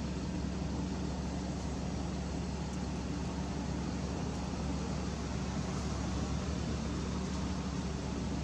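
Steady background noise with a constant low hum, unchanging throughout.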